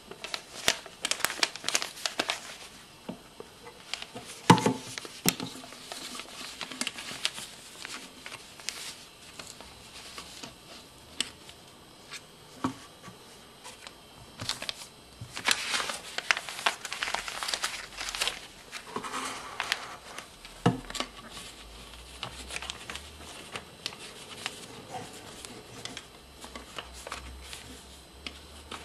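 A paper note being handled, rustling and crinkling in irregular bursts, with a few sharp knocks.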